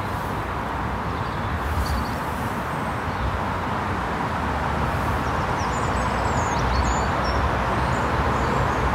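Steady drone of road traffic, a constant wash of tyre and engine noise, growing slightly louder toward the end.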